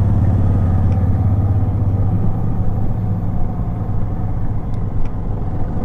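Motorcycle engine running steadily with road and wind noise, heard from the moving bike.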